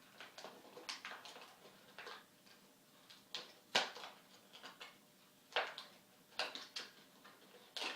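Hands handling the opened packaging of a new Zippo lighter: irregular rustles and light clicks, with one sharper click a little before the middle.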